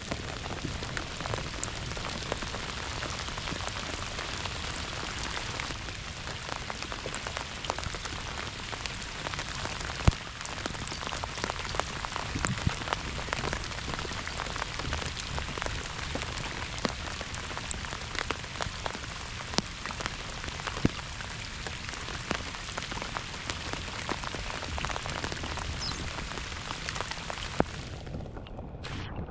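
Steady rain falling on the water: a dense patter of drops, with now and then a louder single drop.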